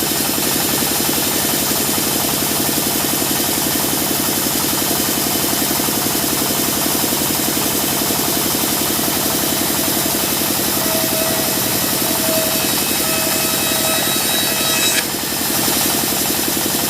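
Engine driving a sawmill, running steadily with a fast even pulse; the level dips briefly about fifteen seconds in.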